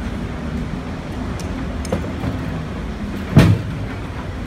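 Garwood rear-loader garbage truck's diesel engine idling with a steady low hum. About three and a half seconds in comes a single loud knock, a plastic bin liner being set into a street litter bin.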